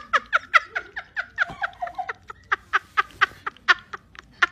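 A person laughing in rapid, high-pitched bursts, about four a second, each falling in pitch, with a short pause about halfway through.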